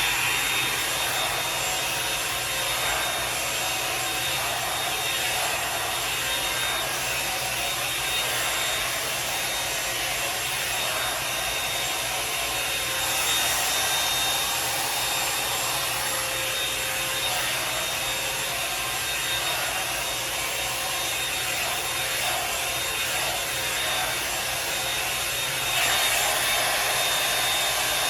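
Revlon One-Step hair dryer brush running at a steady blow with a high whine, its bristles rubbing through hair as it is pulled along; the level swells a little about halfway through and again near the end.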